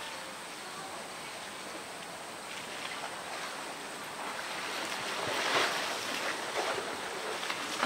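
Pool water splashing and sloshing as a polar bear wrestles a blue plastic drum in the water, with a louder splash about five and a half seconds in as the drum is heaved out.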